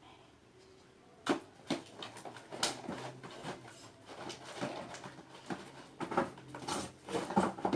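Spoon stirring a thick slime mixture in a bowl, with irregular clicks and knocks starting about a second in.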